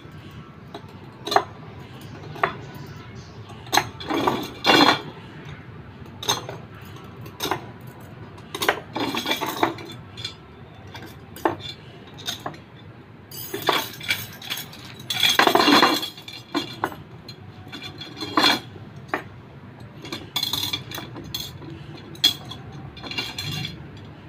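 Metal motorcycle spokes clinking and rattling against each other and the hub and rim as a rear wheel is laced and the spokes are fitted and tightened. Irregular sharp clinks throughout, with longer rattling bursts about 9 seconds and 15 seconds in, the one at 15 seconds the loudest.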